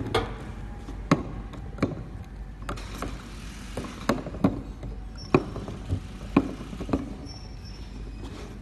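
Bottles being handled and set down on a wooden board, knocking against the wood and each other in about a dozen sharp, irregular taps, with few after about seven seconds.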